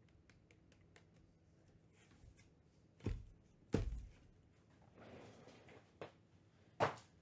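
Cardboard trading-card boxes being lifted off a stack and set down on a table: four dull thuds, the ones about four and seven seconds in loudest, with soft sliding and rustling of cardboard between them.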